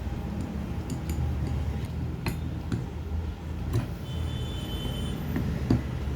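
Light metallic clicks and clinks of small tools and parts while screws are driven and tightened into a turbocharger's centre housing during a rebuild, over a steady low hum. A brief high ringing tone sounds about two-thirds of the way through.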